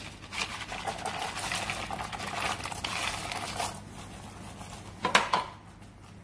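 Dried kidney beans poured from a plastic tub into a pastry-lined tart tin as baking weights for blind baking: a dense rattling patter for about three and a half seconds, then softer shifting as the beans are spread by hand, with a short clatter about five seconds in.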